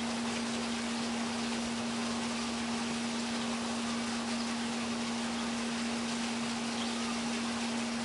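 A steady hum at one pitch under an even hiss, unchanged throughout.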